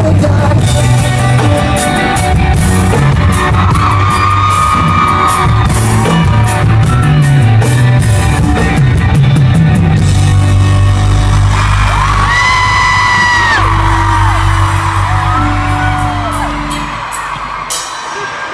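Live pop-rock band playing in a large hall, with drums, cymbal crashes, guitars and singing. After about ten seconds it moves to long held chords with high voices held over them, and it dies down near the end with one last hit.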